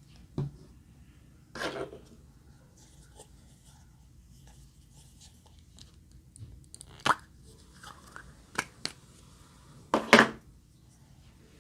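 Slime being worked by hand, with scattered short pops and clicks between quiet stretches; the loudest come as a quick pair near the end.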